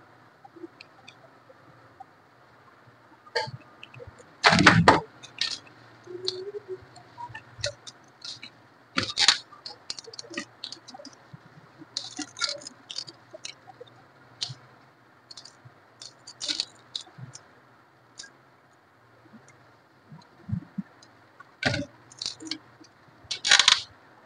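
Plastic 3x3 puzzle cube, freshly oiled, being handled and turned by hand: scattered, irregular clicks and clacks of its pieces, with a few louder knocks.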